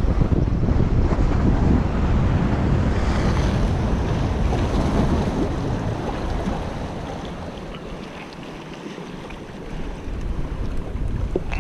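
Wind buffeting the microphone over waves washing against the rocks of a stone jetty. The low wind rumble eases off about two-thirds of the way through.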